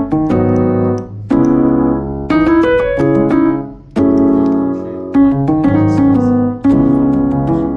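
Background music: piano chords played at a steady pace, each struck and left to ring.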